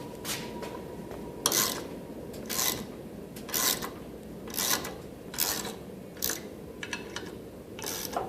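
A ratchet wrench worked in short rasping strokes, about once a second, turning the screw of a crankshaft puller that is pushing the crank out of the engine case.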